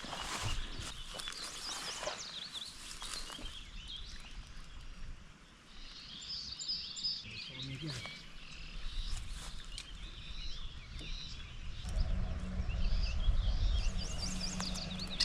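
Several birds chirping and singing beside a stream, with scattered knocks and rustles in the first few seconds. About twelve seconds in, a low rumble with a steady hum comes in and becomes the loudest sound.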